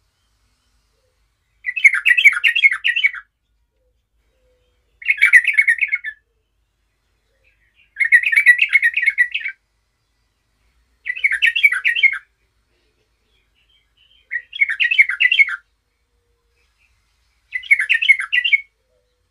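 Yellow-vented bulbul singing: six short, fast warbling phrases, each a second or so long, repeated about every three seconds.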